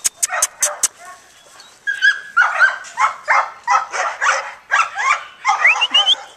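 Dog barking repeatedly in quick succession, about three barks a second, starting about two seconds in after a few sharp clicks.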